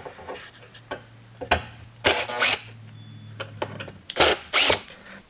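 Cordless drill on a low torque setting backing out screws from a coffee roaster's casing: the motor runs with a steady low hum, broken by several short, loud clattering bursts.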